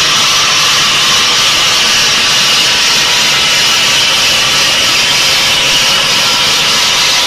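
Granite bridge saw's circular blade cutting through a row of granite blocks: a loud, steady grinding noise with no breaks.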